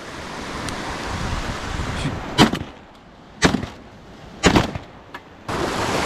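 Three shotgun shots about a second apart, over wind noise; near the end the sound switches abruptly to steady wind and surf.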